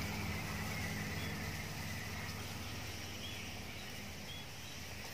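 Outdoor background with the low hum of a distant engine slowly fading away, and a faint short chirp about once a second.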